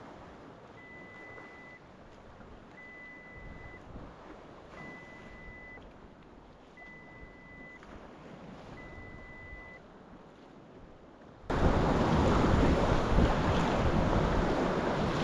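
An electronic beep, one steady high tone about a second long, repeats every two seconds five times over faint background noise. About eleven seconds in the sound jumps suddenly to loud wind on the microphone and waves.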